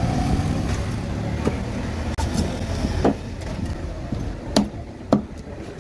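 Heavy fish knife chopping through a trevally on a wooden block: several sharp knocks at uneven intervals, the loudest two near the end, over a steady low traffic rumble.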